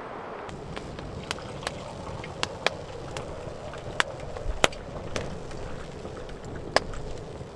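Water poured from a stainless kettle into an enamel mug, with about a dozen sharp, irregular crackling pops.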